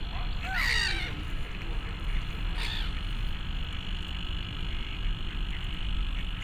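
Pond ambience with frogs calling: a loud call about half a second in and a shorter croak a couple of seconds later, over a steady high chorus and a low rumble.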